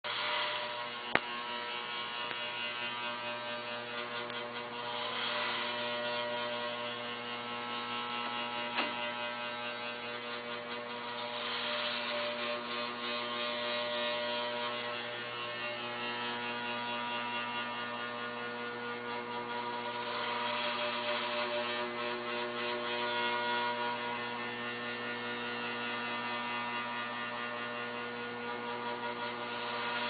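A 33-year-old air conditioner with a seized compressor humming steadily, the hum swelling and easing every several seconds: the sound of a failed, seized compressor. Two sharp clicks come about a second in and about nine seconds in.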